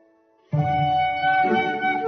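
Instrumental background music: held notes fade almost to silence, then the music starts again suddenly about half a second in, with a low bass part under a melody.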